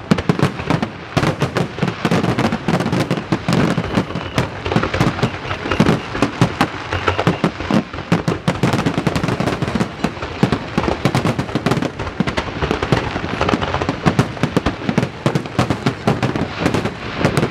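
A fireworks display: a dense, continuous barrage of bursting shells and crackling pops, many bangs a second with no pause.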